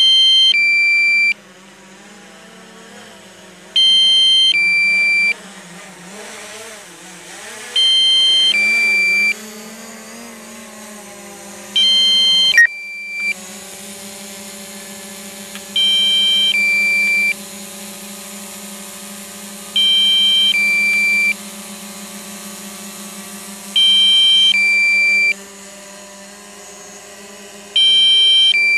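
DJI drone app's low-battery warning: a two-tone electronic beep, a higher chord stepping down to a lower tone, repeating about every four seconds over a steady low hum. It signals that the drone's battery is running low.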